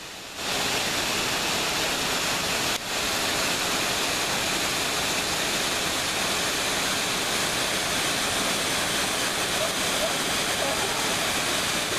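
Waterfall pouring over rock ledges into a pool, a steady rush of falling water heard up close. The sound briefly drops out about three seconds in.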